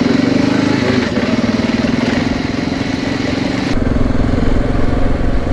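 Dual-sport motorcycle engine running steadily at road speed, with road and wind hiss. About two-thirds of the way through, the hiss thins and the low rumble grows.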